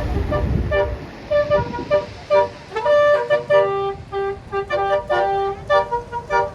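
Bus telolet horn, a Basuri multi-trumpet air horn, playing a quick tune of short notes that change pitch every fraction of a second. A bus engine rumbles during the first second.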